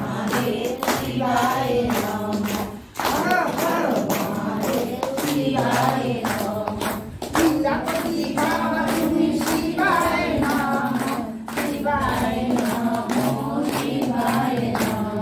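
A group of women singing devotional songs to Shiva together, led by one voice, with hands clapping along to the beat.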